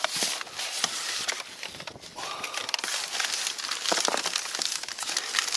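Plastic bait packets and a cardboard box rustling and crinkling as a hand rummages through them, with many small scrapes and clicks.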